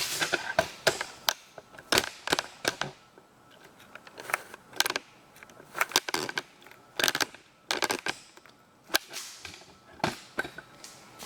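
Irregular sharp clicks and knocks, a dozen or more, of hard objects being handled and set down.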